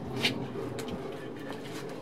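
A single sharp knock about a quarter second in, over a faint steady background hum.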